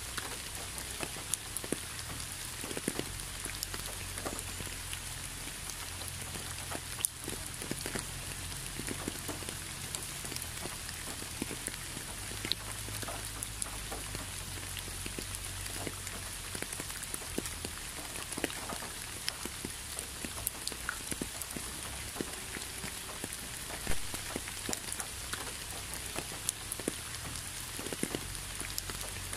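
Steady rain falling, with many separate drops striking close by as sharp ticks over an even hiss and a low, steady rumble underneath. A few drops hit louder than the rest, one about seven seconds in and one near the end.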